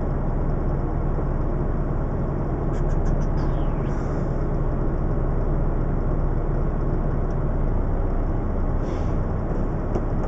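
A DAF CF tractor unit's diesel engine idling steadily, heard from inside the cab while the lorry stands in traffic. A few light clicks come about three seconds in.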